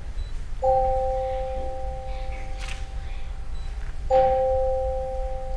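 Tone chimes struck twice, about three and a half seconds apart, each note ringing on steadily with a long sustain.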